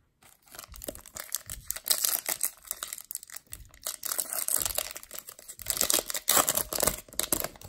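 Foil wrapper of a Topps Chrome baseball card pack being torn open and crinkled by hand: a dense, irregular run of crackles and rips.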